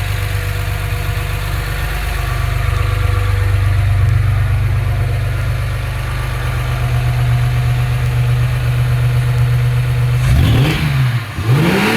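Chevrolet Opala's 4.1-litre gasoline straight-six with a 6-into-2 header, idling smoothly and evenly in a well-tuned state. Near the end the throttle is blipped twice, and each time the revs rise and fall back.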